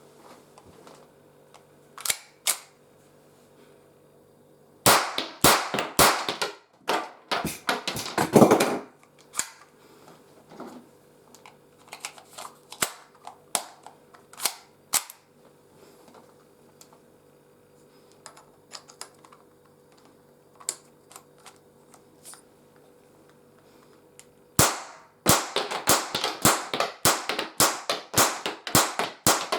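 Sharp metallic clicks and cracks from handling and firing a pistol fitted with a silencer: a dense run of cracks from about five to nine seconds in, scattered single clicks after it, and another rapid run of cracks, about four or five a second, from about twenty-five seconds in.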